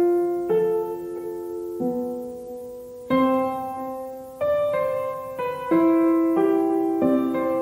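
Background music: slow piano chords, each struck and left to ring, changing about every second or so.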